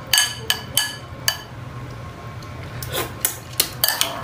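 Metal spoon clinking and scraping against a ceramic bowl while stirring wet raw fish and chopped vegetables in vinegar. Sharp ringing clinks come in two clusters, in the first second or so and again about three seconds in, with softer scraping between.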